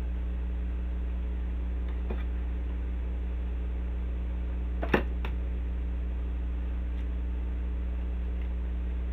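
Desk fan running with a steady low electric hum, with a sharp knock about five seconds in and a lighter one just after.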